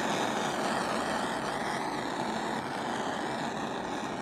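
Handheld gas torch burning with a steady hiss as its flame is passed over wet poured acrylic paint, heating the surface to make the cells pop up.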